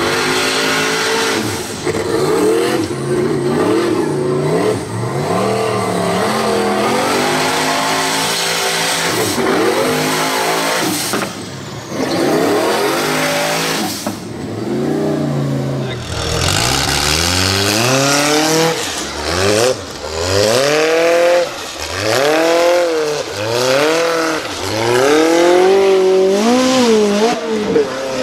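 Formula Offroad hill-climb cars' engines revving hard, the pitch swinging up and down again and again as the wheels spin and throw dirt on the climb. A few separate runs follow one another; in the later one the revs rise and fall about every second and a half.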